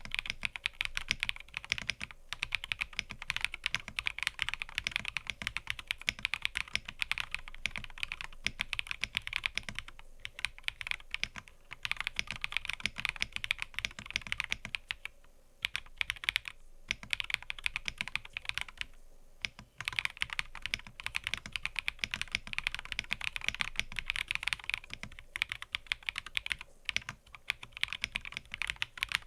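Continuous fast typing on a mechanical keyboard: a dense patter of key clicks in long runs, broken by a few brief pauses.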